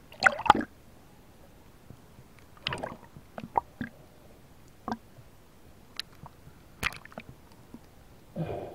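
Irregular clicks and knocks with a few short watery sloshes, the loudest just after the start and another near the end.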